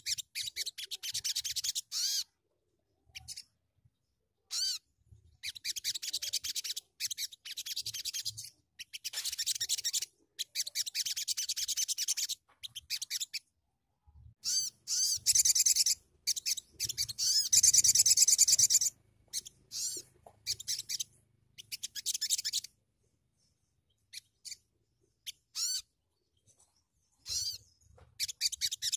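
A sogon (sogok ontong) songbird singing high, rapid trilled phrases in bursts of one to three seconds with short silent gaps. The longest and loudest phrase comes around the middle, followed by a sparser stretch of brief notes before the song picks up again near the end.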